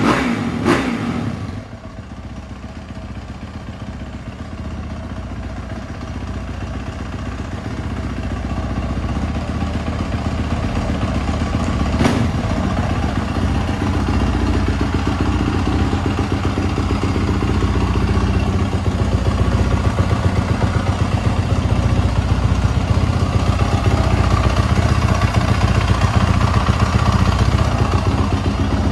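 2018 Yamaha YZ450F single-cylinder four-stroke motocross engine, warming up after a cold start. It is revved briefly in the first couple of seconds, then settles to a steady idle that grows gradually louder.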